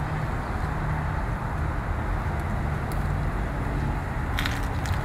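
Steady low rumble of outdoor road traffic. About four and a half seconds in comes a short cluster of crisp clicks as bonsai cutters snip small twigs off the bald cypress.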